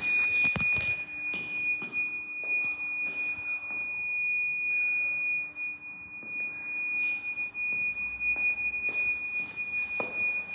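A steady, high-pitched electronic tone, unbroken, with a second tone an octave above it, over faint room noise and a few light knocks. It is an unidentified electronic beeper.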